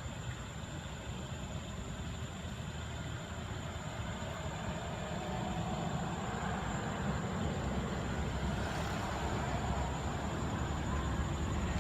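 A motor vehicle engine running with a steady low rumble, growing a little louder about halfway through, with a thin steady high tone above it.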